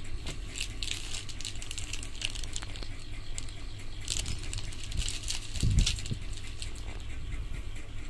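Clear plastic parts bag crinkling and rustling as it is handled, with small hard parts clicking inside it, and a dull thump a little before six seconds in. A steady low hum runs underneath.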